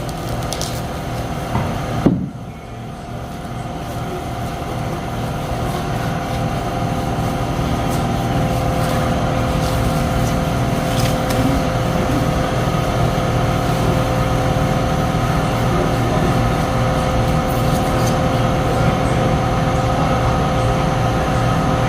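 Steady mechanical hum of a motor running, with a low rumble and a few fixed whining tones. A single sharp knock comes about two seconds in.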